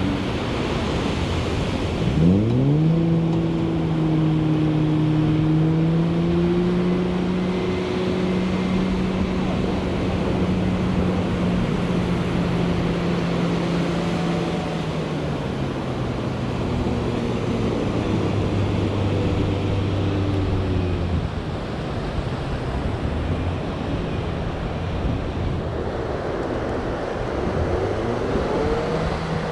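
Pickup truck engine revving while towing a boat through sand and shallow surf. It picks up about two seconds in and holds steady, settles to a lower note around the middle, then revs again near the end, over breaking surf.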